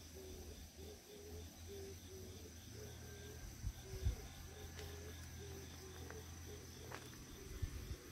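Faint outdoor ambience: insects chirping in a steady rhythm of about three pulses a second over a low rumble, with a few small clicks near the middle.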